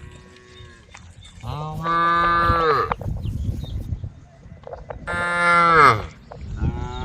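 Cows mooing, calling to the herd: a faint call at the start, then long, loud moos about a second and a half in and around five seconds in, and another beginning near the end.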